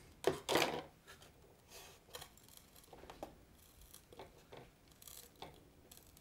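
Faint small handling noises: two short scraping, rasping sounds about half a second in, then scattered light clicks and rustles.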